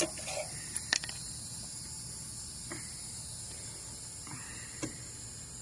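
Steady high-pitched insect chorus, with a few light clicks and knocks, the loudest about a second in.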